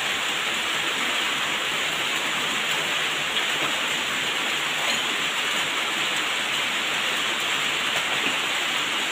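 Rain falling steadily, an even hiss of rain with no let-up.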